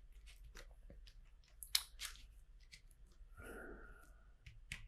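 Small plastic LEGO bricks clicking and rattling as they are handled and pressed together: a scatter of light clicks, one sharper click a little under two seconds in, and a brief rustle of pieces being sorted a little past halfway.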